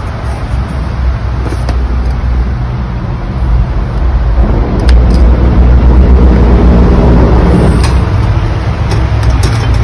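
A loud, steady low rumble that grows louder about halfway through, with a few light clicks near the end.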